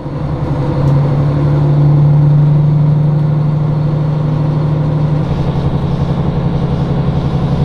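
KiHa 40 diesel railcar's engine working hard as the car pulls away, a loud steady low drone heard inside the car. About five seconds in the note drops a little and a regular pulsing comes in.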